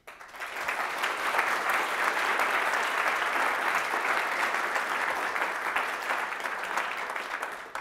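Audience applauding: dense clapping that swells over the first second, holds steady, and fades out near the end.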